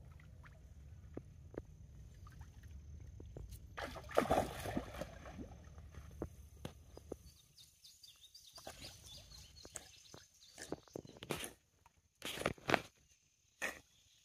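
A dog swimming, the water sloshing and splashing around it, with louder splashes about four seconds in and again near the end.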